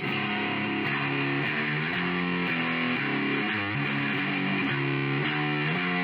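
Outro music: a distorted electric guitar playing a steady strummed riff, starting abruptly.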